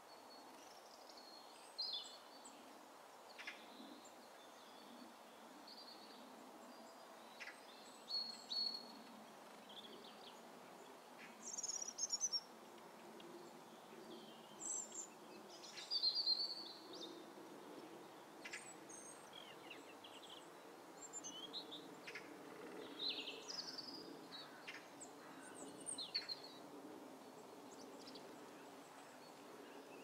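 Small woodland birds calling and singing: many short high chirps and brief song phrases scattered throughout, the loudest near the middle, over a steady low background noise.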